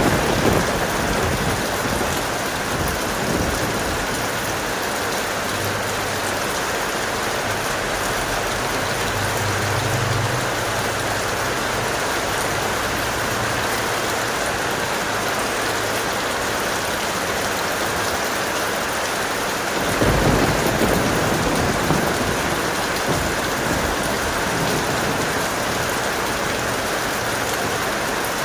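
Steady heavy rain with thunder rumbling, once at the very start and again about two-thirds of the way through.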